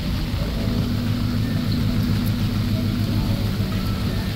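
A vehicle engine idling nearby with a steady low hum, over a haze of street noise.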